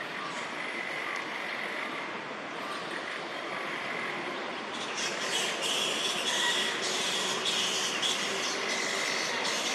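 Fruit bats (flying foxes) calling together in a continuous chorus of high, drawn-out squeals over a noisy background. The calling grows louder and busier about halfway through.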